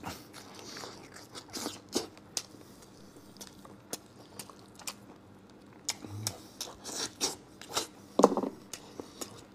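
Close-miked chewing and biting of a person eating grilled lamb ribs in chili sauce: many short sharp mouth clicks, with a louder mouth sound about eight seconds in.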